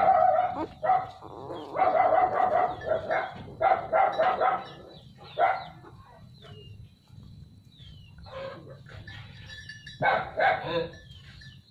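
A dog barking in repeated bursts through the first five seconds or so, then again about ten seconds in.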